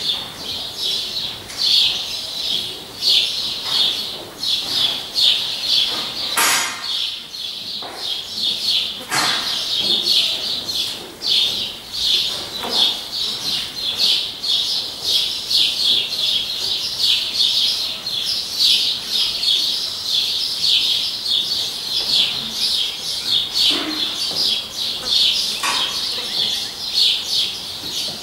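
Steady, dense chirping of small birds, pulsing several times a second, with a few brief louder sounds in between.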